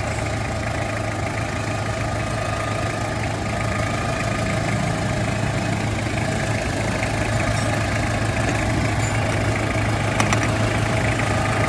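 Car engine idling steadily with the air-conditioning compressor running during a gauge pressure test; the compressor can no longer build enough pressure and is judged worn out. A light click about ten seconds in.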